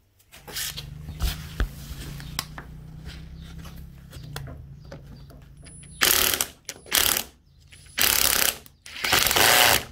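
Cordless drill drilling out a fastener head in an aluminium tent-base rail, in about four short bursts in the second half, after a stretch of lighter mechanical clicking and hum.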